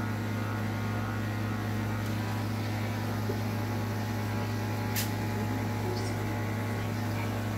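Corded electric dog-grooming clippers running with a steady low buzz while trimming the hair on a dog's head, with a single sharp click about five seconds in.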